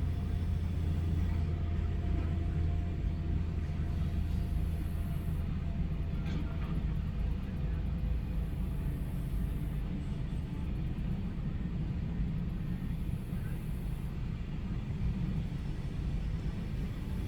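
Heavy diesel construction machinery (excavator and dump trucks) running steadily with a deep engine drone, which eases a few seconds in. A faint knock comes about six seconds in.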